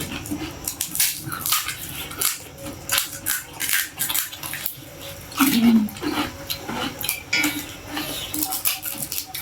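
Close-up eating sounds of panipuri: crisp puri shells cracking and wet chewing in many quick crunches, with a brief low hum from the eater about five and a half seconds in.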